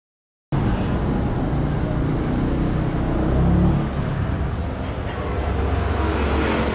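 Silent for about half a second, then steady street traffic noise with a low rumble.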